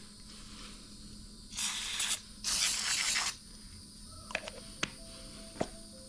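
Aerosol can of self-rinse evaporator coil cleaner spraying in two short hissing bursts, the second a little longer, followed by a few light clicks.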